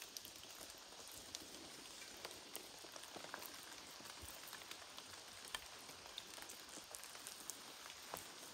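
Hands rubbing seasoning into the skin of a raw, stuffed goose: faint, sticky, wet crackles and small scattered clicks over a steady soft hiss.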